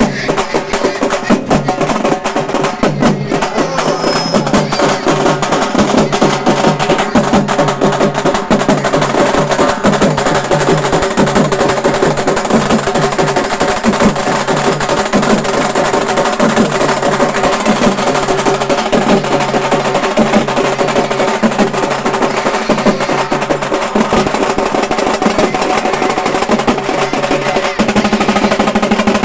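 Halgi frame drums played by a troupe in a fast, dense stick rhythm, with the drums ringing; the pattern changes near the end.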